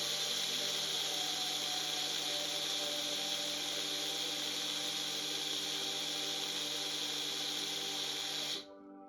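Electric mixer grinder running steadily as it grinds rice in its jar, then cutting off suddenly near the end.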